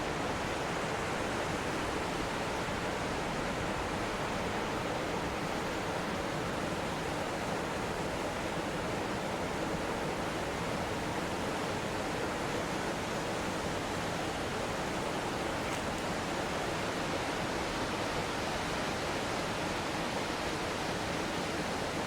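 Mountain stream running over a small waterfall: a steady, even rush of flowing water.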